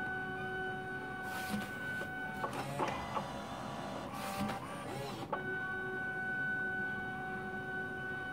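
Fargo HDP5000 card printer running a print pass, resumed after a ribbon repair. A steady motor whine breaks off about two and a half seconds in for a few seconds of clicks and whirring as it changes from the yellow to the magenta ribbon panel, then the steady whine returns.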